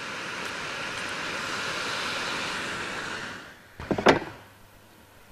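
Chicken pieces and onions frying in a pot, a steady sizzle that dies away about three seconds in. A short clatter of knocks follows about a second later.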